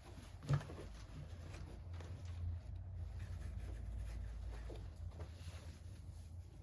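Light handling noises: one sharp knock about half a second in and a few faint taps, over a steady low rumble.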